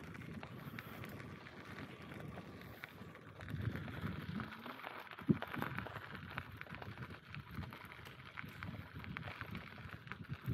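Bicycle rolling along a forest track: steady tyre and ride noise with many small scattered clicks and knocks, one sharper knock about five seconds in.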